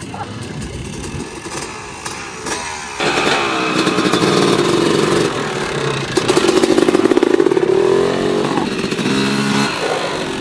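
Dirt bike engines revving hard as the bikes pull away, the pitch climbing and dropping with throttle and gear changes. The engine sound comes in suddenly and loud about three seconds in; before that it is fainter.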